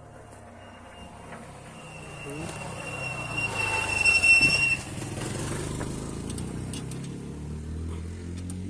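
Chevrolet D20 pickup's diesel engine running, getting louder over the first few seconds and then holding steady, with a thin high squeal around the middle.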